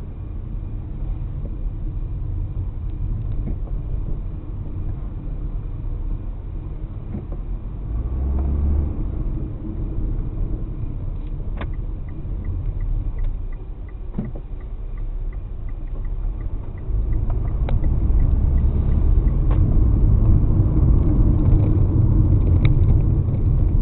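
A car driving on town roads, heard from inside: a steady low rumble of road and engine noise that gets louder from about two-thirds of the way in. A faint, rapid, regular ticking runs for a few seconds midway.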